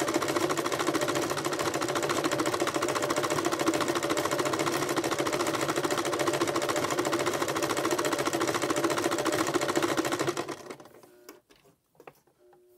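Electric sewing machine running steadily at speed, stitching down a coil of fabric-wrapped rope. It stops suddenly about ten and a half seconds in, followed by a couple of faint clicks.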